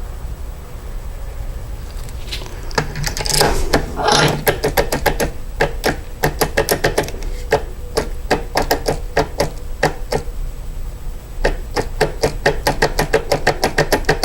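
Schlage depth key being worked in the lock cylinder to impression it: a rapid run of sharp metal clicks, a few per second, starting about two and a half seconds in, with a short lull past the middle and a faster run near the end.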